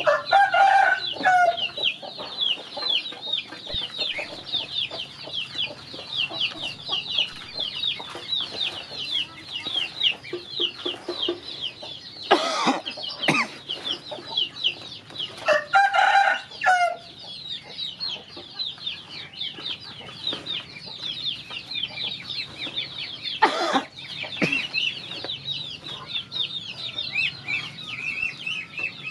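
Young poultry peeping without pause in quick, high, falling cheeps, with a louder call from an adult chicken twice, once near the start and once about halfway through. Two sharp knocks stand out in the second half.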